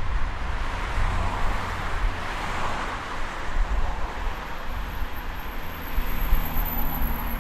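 Road traffic: a steady wash of passing cars with tyre noise and low engine rumble, swelling a little as vehicles go by. Near the end an engine hum is heard under the wash.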